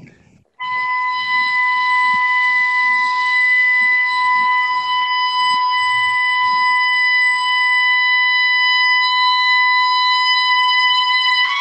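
Oboe sounding one long, steady high note, starting about half a second in and held without a break.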